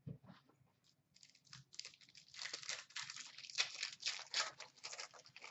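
Foil wrapper of an Upper Deck Series 1 hockey card pack crinkling and tearing as it is ripped open by hand, a dense crackle starting about a second in.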